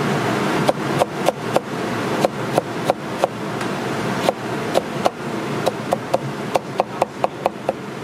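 Chinese cleaver chopping snow peas into strips on a wooden cutting board: a string of sharp knocks of the blade on the board, unevenly spaced at first and quickening to about four or five a second near the end.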